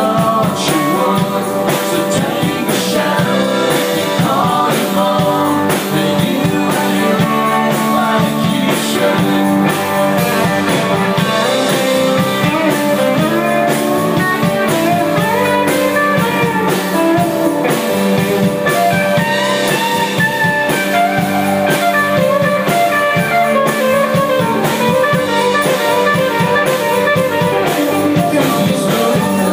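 Live rock band playing loud and continuous, with electric guitars and a drum kit, recorded from the audience on a phone's microphone.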